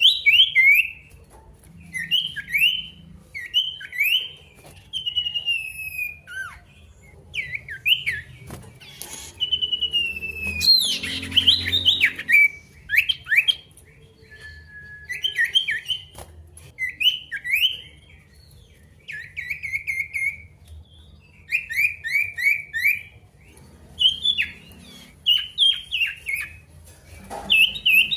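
Male sirtu songbird singing in a vigorous, continuous run: repeated short phrases of quick, sharp chirping notes, each burst lasting a second or two with brief pauses between, the kind of full song used as a lure to provoke rival males and set silent birds singing.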